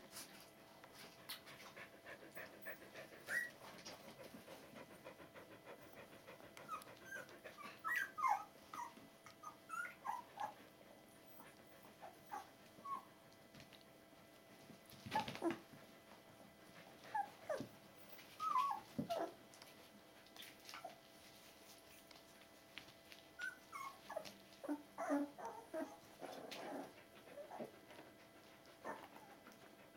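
Two-week-old Border Collie puppies whimpering: short, high squeaks that fall in pitch, coming in several scattered bouts.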